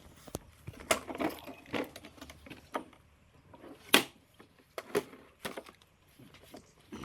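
Irregular clicks and knocks of parts being handled, with one sharp knock about four seconds in and no motor running.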